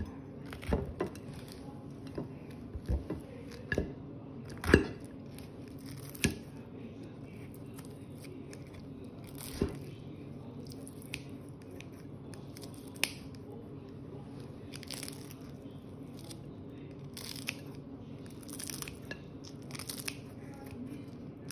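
Table knife and fork cutting air-fried chicken on a porcelain plate: irregular clinks and scrapes of the metal cutlery against the plate. They are most frequent in the first several seconds, with the loudest clink about five seconds in, and give way to softer, sparser scraping strokes.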